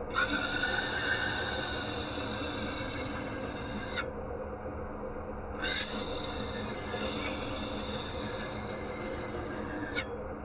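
Steel pressed against a running belt grinder in two grinding passes, each about four seconds long, starting and stopping abruptly. The grinder motor hums steadily between the passes.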